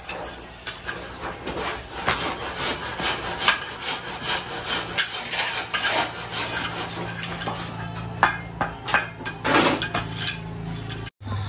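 Hand-tool building work: irregular scraping and knocking strokes, as of tools working wood or masonry, over a low steady hum.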